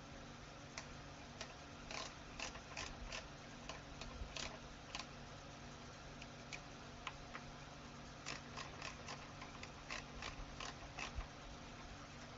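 Small metallic clicks and ticks of screws and a hex key being handled and turned into an aluminium hub as two screws are put back in, coming in irregular clusters.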